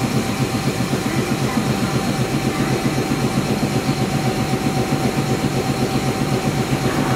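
Tobu 300 series electric train standing at the platform, its onboard machinery running with a steady, rapid low chugging and a faint steady whine.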